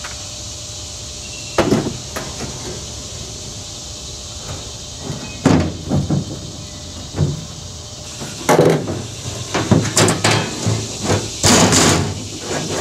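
A sheet of .100 aluminum being set into an aluminum jon boat's hull as a floor panel: a series of knocks and clanks as the sheet drops onto the frame and is pushed into place, coming thicker in the second half.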